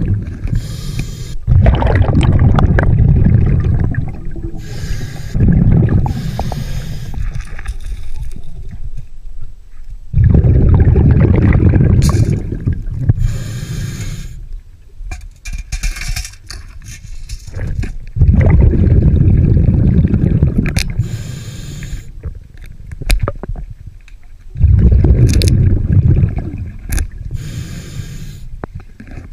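Scuba diver breathing through a regulator underwater: a short hiss on each inhale, then a long, loud, low rush of exhaled bubbles, repeating about every four to six seconds.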